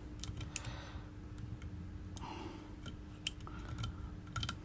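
Light scattered clicks and scrapes of a small metal blade working over an iPhone 11's frame, clearing leftover back-glass glue by hand. One sharper click comes a little after the middle, over a faint steady hum.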